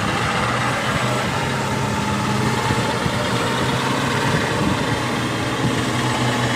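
Heavy machinery engine running steadily at idle: a constant low hum under a rough, noisy rattle.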